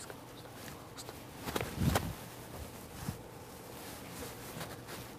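Hushed auditorium room tone with faint shuffles and soft steps, and a brief, louder low sound about two seconds in.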